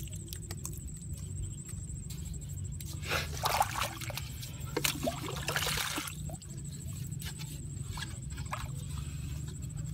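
Water trickling and splashing as it is scooped and poured by hand onto wet mud, loudest and busiest about three to six seconds in, over a steady low rumble.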